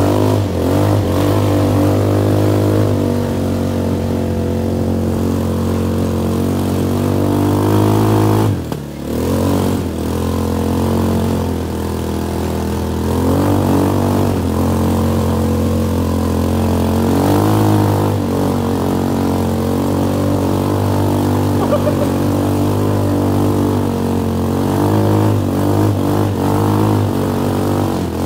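Kuba MX 220 ATV engine running under load on a dirt track, its pitch rising and falling with the throttle. The engine drops off briefly just before 9 seconds in, then picks up again.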